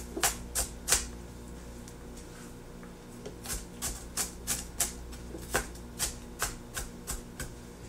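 Knife dicing onions on a cutting board: three quick strikes, a pause of about two seconds, then a steady run of about three strikes a second. A faint steady hum sits underneath.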